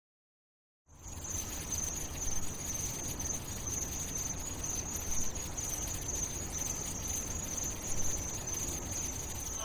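After about a second of silence, a steady shrill high-pitched chirring starts, with a low rumble beneath it. It holds unchanged until it is cut off by music at the end.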